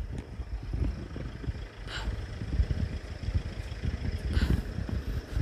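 Van engine idling, with an uneven low rumble.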